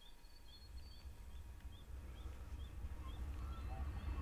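A small bird repeating one short high chirp about twice a second, with a low rumble building steadily louder underneath.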